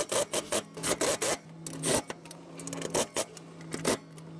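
Milwaukee M18 Fuel cordless impact driver running mower-deck bolts in. Its motor hums steadily under the rapid, uneven clatter of its hammer.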